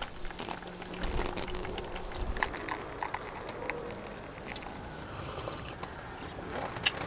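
Hot water poured from a small camping kettle onto a drip-coffee bag in a metal mug: a quiet trickle with a few small clicks.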